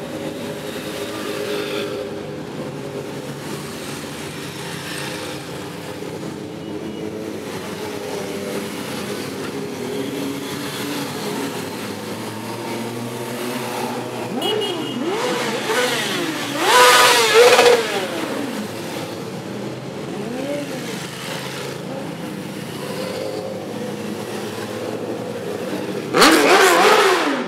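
A procession of motorcycles riding past one after another, engines running steadily, with bikes revving up as they go by. The loudest passes come just past the middle and again near the end.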